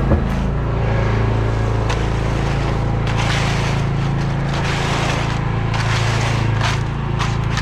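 An engine runs steadily with a low, even drone. Several short clicks and scraping knocks and a burst of hiss are heard over it.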